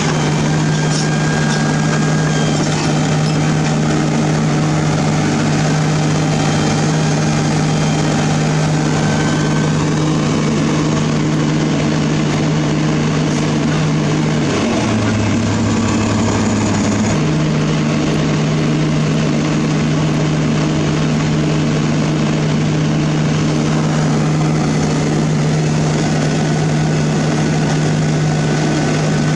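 Heavy excavator diesel engine running steadily, a constant deep drone that drops in pitch for about two seconds around halfway through, then returns to its previous note.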